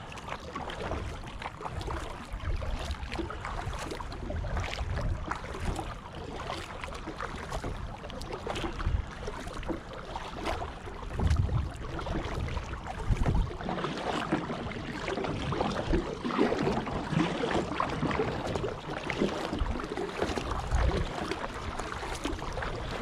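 Water sloshing and splashing around a kayak, with scattered knocks and wind rumbling on the microphone.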